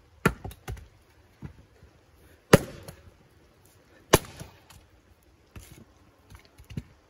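A series of sharp cracks from axe blows splitting firewood rounds, mixed with firecracker-like pops from a sparking, smoking firework beside the wood pile. The two loudest cracks come about two and a half and four seconds in.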